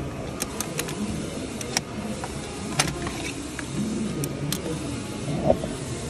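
Hand tools clicking and clinking against metal parts of the engine bay: scattered sharp clicks, the sharpest about three seconds in, and a short ringing clank about five and a half seconds in, over a steady low background rumble.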